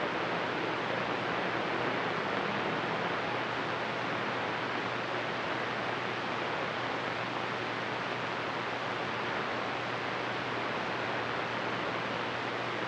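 CB radio receiver putting out steady static hiss on an open channel, with no station coming through and a faint low hum underneath.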